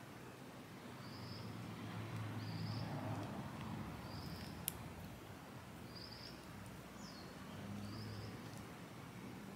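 Faint bird calls, a short chirp repeated about once a second, over a low steady background hum, with one sharp click about halfway through.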